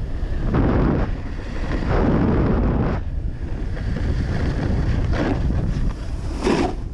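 Wind buffeting a GoPro's microphone as the rider moves under the kite, a low rumble that rises and falls in gusty surges, with a sharper hiss near the end.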